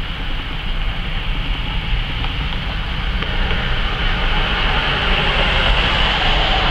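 City street traffic: a steady rumble with the tyre hiss of passing cars, swelling louder toward the end.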